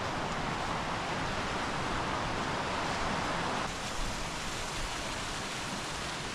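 Steady rush of a stream tumbling over small waterfalls. It eases a little over halfway through and sounds less bright.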